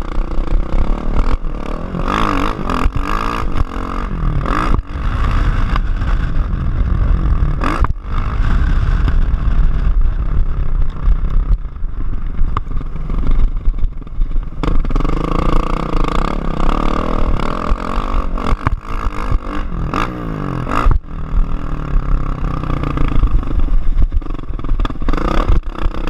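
Kawasaki KX450F motocross bike's single-cylinder four-stroke engine revving up and down as it is ridden hard around a dirt track, with short drops in revs about eight seconds in and again near the end. Heavy wind rush on the microphone throughout.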